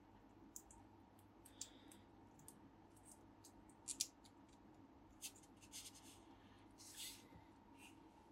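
Faint, scattered clicks and light scrapes of a small plastic action-figure hand being handled and turned between the fingers, with a slightly louder pair of clicks about four seconds in.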